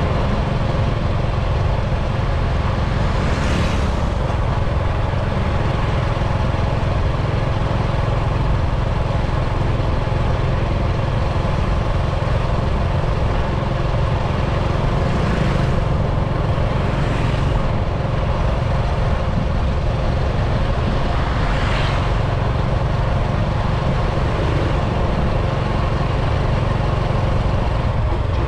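Steady engine drone and road noise from a moving vehicle cruising along an open road. Brief whooshes of hiss rise and fall about four times.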